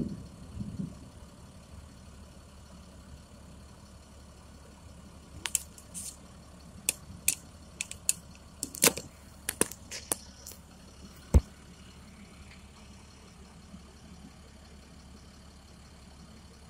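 Steady low hum of an idling vehicle heard from inside the cab. About a dozen sharp, irregular clicks and taps come between about five and eleven seconds in.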